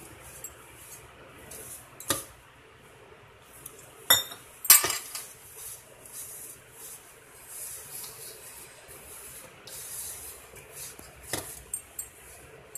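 A hand rubbing and mixing flour in a stainless steel bowl, a soft scraping rustle, broken by a few sharp metallic clinks against the bowl, the loudest about four to five seconds in.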